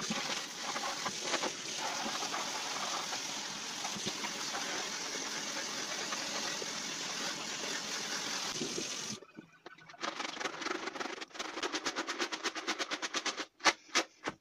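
Tap water running steadily over dry mixed beans in a plastic colander while a hand stirs them, sped up. About nine seconds in the water cuts off suddenly, and a fast, even rattling of beans being shaken in the colander follows, then a few sharper clicks near the end.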